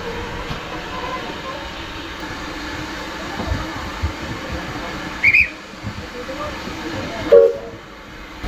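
Heritage steam train running: a steady rumble with irregular knocks, broken by a short high-pitched sound about five seconds in and a louder, lower pitched sound about seven seconds in.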